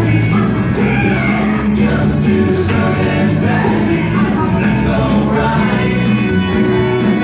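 Upbeat song with a singing voice over a steady beat and sustained bass, playing without a break.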